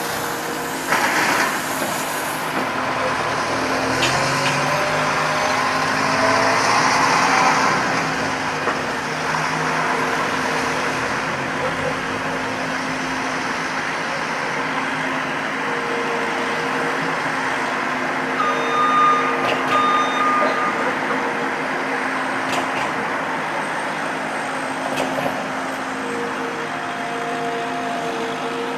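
Road traffic running past, with a few sharp, irregularly spaced knocks from a loose storm-drain grate that clanks as it is driven over.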